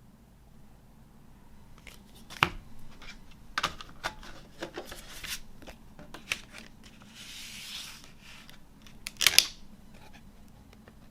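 CD album packaging being handled: scattered clicks and taps, a soft rustling slide a little past the middle, and a quick cluster of sharp clicks near the end.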